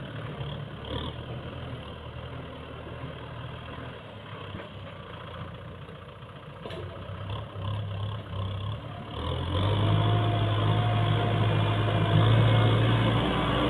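Kubota M6040 tractor's diesel engine running steadily as the tractor works over ploughed ground. It is fainter at first and grows clearly louder about nine seconds in as the tractor comes closer.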